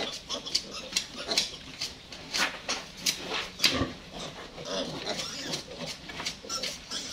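Piglet giving short, repeated squeals and grunts while being held for castration.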